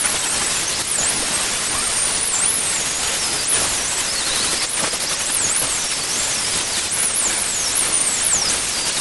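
Angle grinder grinding the mild steel of an anvil's horn: a steady harsh hiss of the disc on steel, with a high whine that dips in pitch and recovers over and over.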